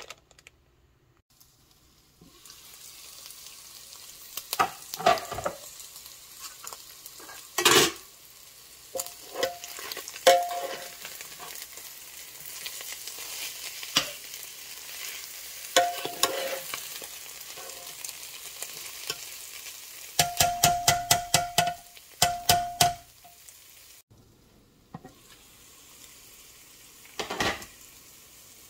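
Shredded chicken frying in oil in a Ninja cooker pot, a steady sizzle that starts about two seconds in and drops away near the end, while a metal fork scrapes and clicks against the pot as it is stirred, with a quick run of ringing taps about twenty seconds in.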